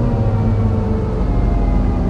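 MAN NL202 CNG bus pulling uphill: the misfiring gas engine runs rough under load, under the whine of the ZF Ecomat automatic gearbox. The whine slowly falls in pitch, and a new whine comes in about three quarters of the way through.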